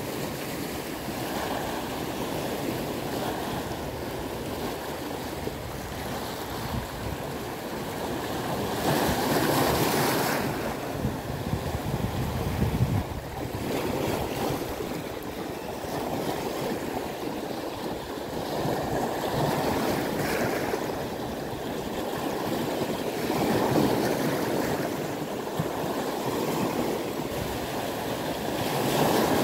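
Small waves breaking and washing over rocks at the waterline, the surf swelling louder every few seconds.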